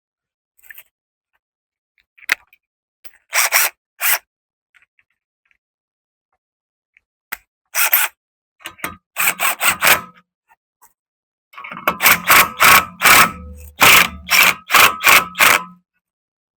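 Hand tools working on metal: short scraping clicks in scattered strokes, then a quick run of them about two to three a second near the end, as the rear wheel is refitted.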